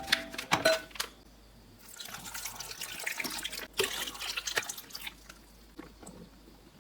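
Water from a kitchen tap splashing and dripping in a sink, as if something is being rinsed, with a few light knocks. A music phrase fades out in the first second.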